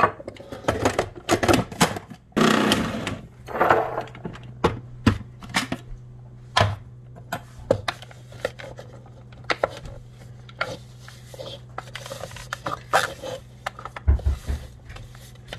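Wooden spatula scraping and knocking a crumbly ground-nut mixture down the sides of a plastic food processor bowl, with irregular scrapes, clicks and taps against the bowl and blade.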